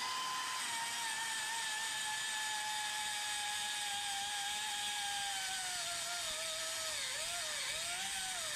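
Pneumatic die grinder spinning up at once to a steady high whine while porting a cast-iron Big Block Chevy oval-port cylinder head, blending the valve pocket into the seat. Its pitch slowly sags, then dips and wavers over the last couple of seconds as the bit bites into the metal.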